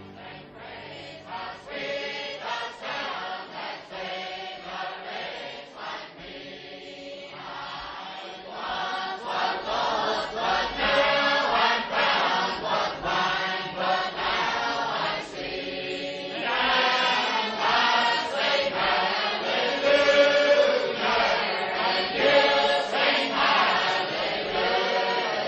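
A choir of voices singing a slow, chant-like song, growing louder about nine seconds in.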